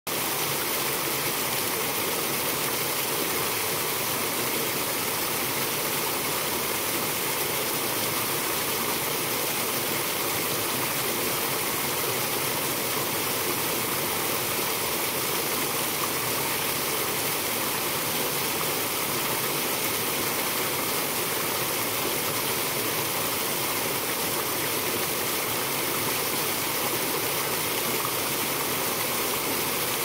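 A small waterfall cascading and splashing down rock ledges. It makes a steady rush of falling water with a strong high hiss.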